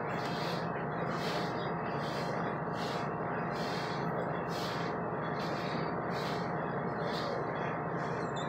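A dog panting in a quick, even rhythm, over a steady low hum.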